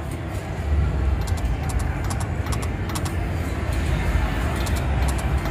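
Casino floor din with a steady low rumble, over which a slot machine clicks and ticks in quick runs as its reels spin and stop during a free game.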